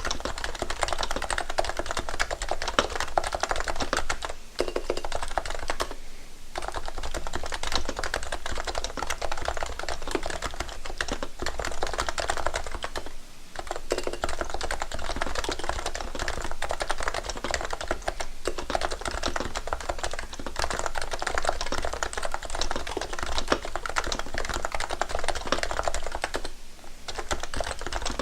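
Continuous fast typing on a Realforce for Mac keyboard with Topre electrostatic-capacitive switches. Dense keystrokes run on, broken by a few short pauses.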